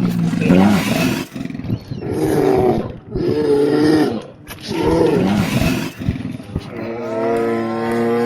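A wild predator calling: about four drawn-out roaring calls of roughly a second each, then one long, steady-pitched call starting near the end.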